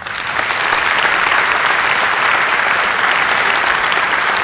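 A large audience applauding, swelling quickly at the start and then holding steady.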